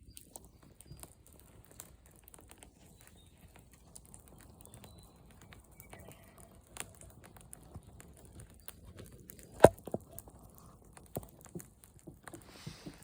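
Campfire crackling: irregular small snaps and clicks from burning wood, with one loud sharp pop about ten seconds in.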